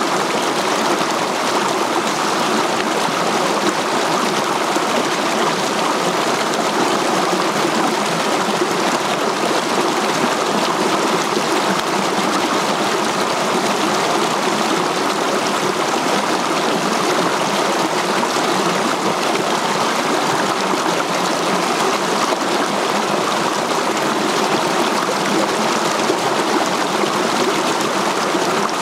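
A rocky mountain stream running over boulders in small cascades: a steady, even rush and splash of water.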